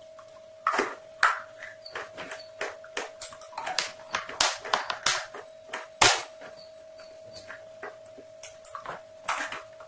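Close-miked crunching as a hard, brittle white stick is bitten and chewed: a run of sharp, irregular crisp snaps, several of them loud, over a faint steady hum.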